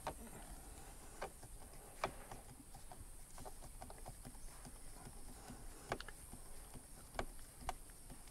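Hand screwdriver driving a screw into an interior trim panel: about six sharp, separate clicks and taps at uneven intervals over a faint steady background.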